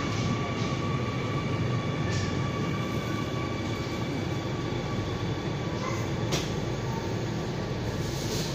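Singapore MRT train heard from inside the carriage: a steady rumble of the moving train with a faint, steady high whine over it.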